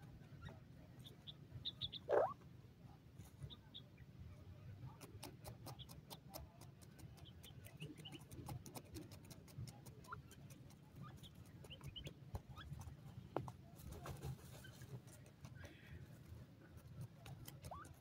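Faint short, high chirps from grey francolins resting on the ground, with scattered clicks over a low steady hum, and one brief louder call about two seconds in.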